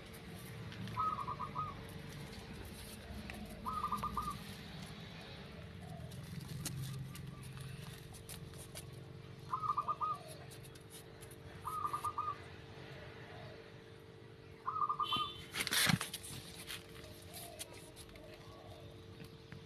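A bird repeats a short, rapidly pulsed call five times, a few seconds apart, over a steady low hum. Near the end there is one louder, sudden sound.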